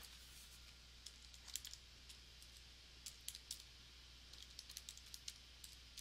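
Faint, irregular clicks of calculator keys being pressed: a few scattered presses, then a quicker run near the end, over a low steady hum.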